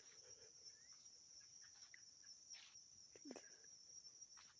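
Faint, steady chorus of crickets or other insects, with a few faint bird calls and chirps from some distance.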